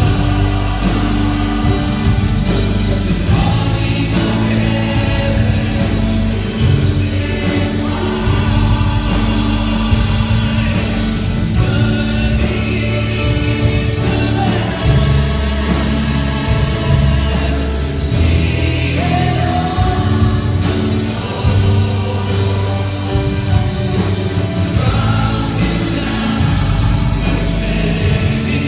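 Christian song performed live: a male soloist singing into a microphone, backed by a choir and piano, amplified through the hall's sound system.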